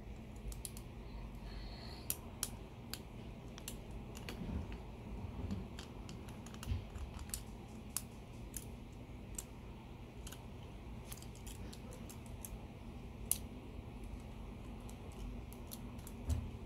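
Lego bricks being handled and pressed together: irregular small plastic clicks and taps, a couple a second.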